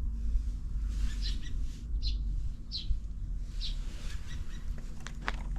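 A bird chirping: short high calls repeated about every three-quarters of a second, over a steady low rumble. A few sharp clicks come near the end.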